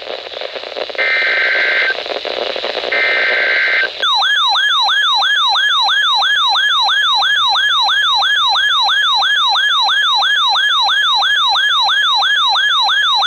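NOAA weather radio receiving an emergency alert: over radio hiss, two bursts of buzzy SAME digital header tones, each about a second long. About four seconds in, the receiver's alert siren starts, a loud warbling tone that sweeps up and down about two and a half times a second, signalling a tornado warning.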